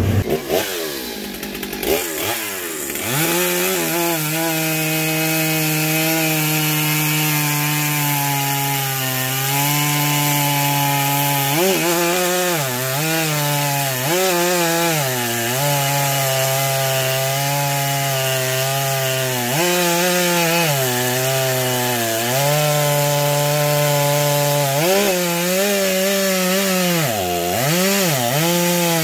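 Stihl MS 661 chainsaw cutting through a large oak trunk, running at high speed. Its pitch sags again and again as the chain is pressed into the cut, then picks back up. The saw comes in about two seconds in.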